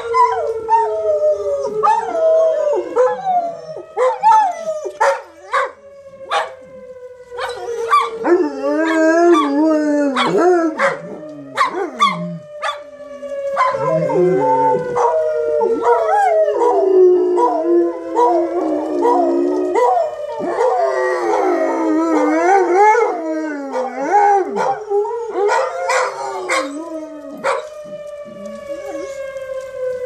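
Two dogs howling along with a civil defense siren test, their wavering howls broken by sharp barks and yips. Underneath, the siren holds a steady tone that slowly rises and falls.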